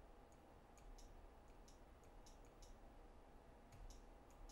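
Plastic stylus tapping on the touchscreen of a Palm IIIxe PDA: a string of faint, light, irregular taps.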